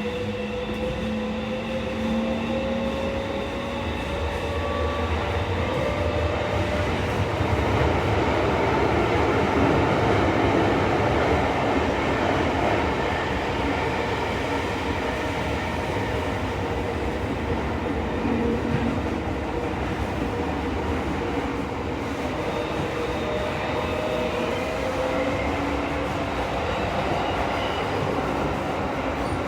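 Tokyo Metro Series 16000 train heard from inside the car while running through a tunnel. A steady rumble of wheels and track carries the motor whine, which rises slowly in pitch over the first several seconds as the train gathers speed and rises again near the end.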